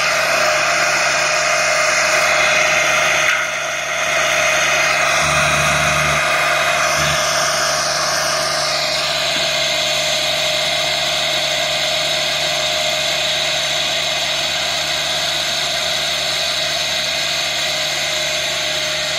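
NEWBANG DRM165 tractor-mounted drum mower cutting tall grass. Its spinning drums and the tractor engine give a steady, high-pitched mechanical whine, dipping briefly about three and a half seconds in.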